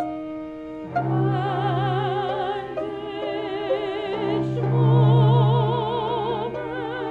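Operatic singing in long held notes with wide vibrato, over low sustained bowed-string notes. The music dips briefly just before a second in, then carries on.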